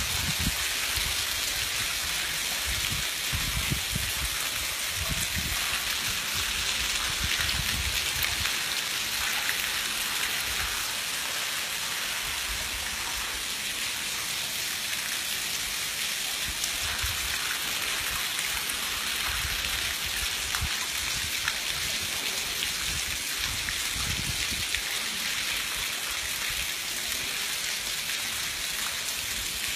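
Heavy rain falling steadily, a dense even hiss, with water from a roof drainpipe spilling onto the ground and low rumbles now and then.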